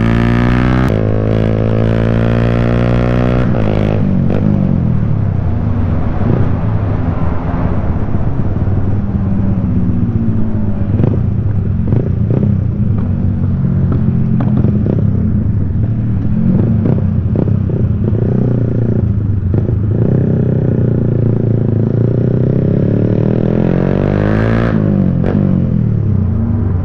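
Yamaha Y15ZR motorcycle's single-cylinder four-stroke engine through a CJ Ipoh aftermarket exhaust, heard while riding. The pitch climbs and drops several times as the bike accelerates and changes gear.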